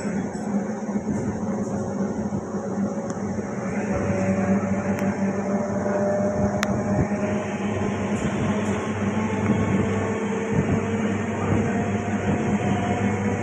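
Steady running noise of a train heard from inside the coach: a continuous rumble with a low hum, and a couple of sharp clicks near the middle.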